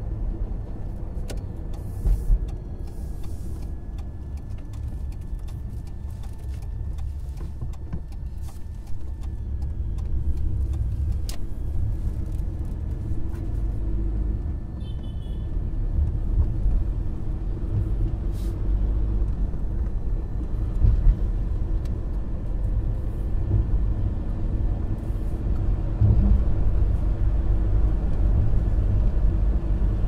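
Taxi ride heard from inside the cabin: a steady low road-and-engine rumble with scattered small rattles and clicks, and a faint steady high whine over it.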